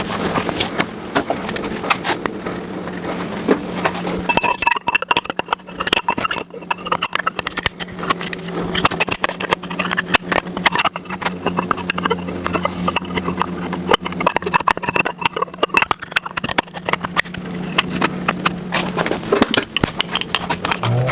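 Many irregular metallic clicks and taps of hand-tool work, over a steady low hum.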